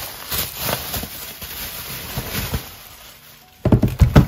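Bubble wrap crinkling and rustling as it is pulled off a stack of shrink-wrapped albums, then a few loud knocks near the end as the albums are set down on a wooden desk.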